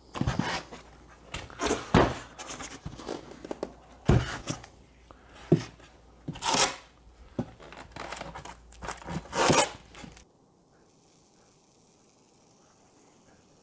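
Strips of blue painter's tape being pulled off the roll and torn, mixed with the scraping and knocking of a styrofoam box being handled and turned over. The noise stops abruptly about ten seconds in, leaving near silence.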